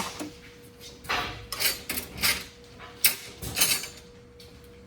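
Metal tools and parts clinking and clattering as they are handled, in a string of short, uneven knocks and rattles.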